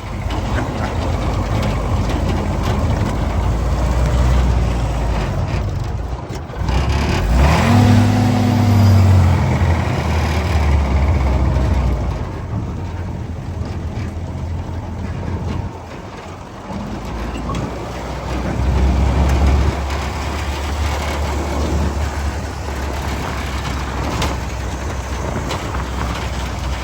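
1952 Willys M38A1 jeep being driven, its four-cylinder F-head engine running throughout. The engine note revs up and falls back about a quarter of the way in, eases off past halfway, then pulls harder again.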